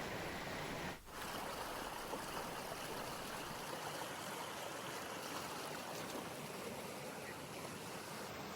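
Steady rushing of a flowing stream at a small waterfall, with a brief dip about a second in.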